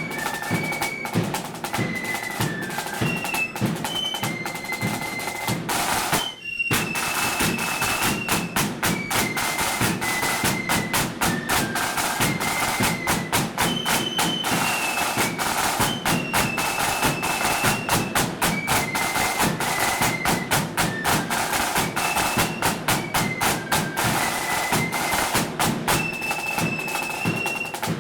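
Blood-and-thunder flute band playing a march: massed flutes carry the tune over rapid snare drumming and heavy bass drum beats. The sound cuts out for a split second about six seconds in.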